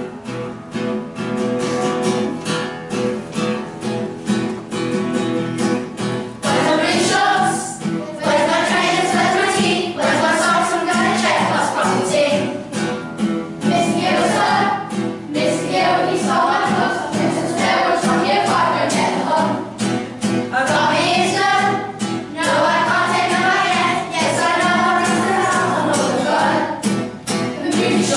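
A group of children singing together to a strummed acoustic guitar. The guitar plays alone for about the first six seconds before the voices come in.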